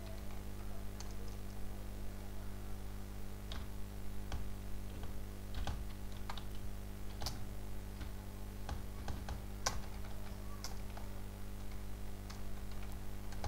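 Computer keyboard typing: scattered, irregular runs of key clicks as text is entered, over a steady low hum.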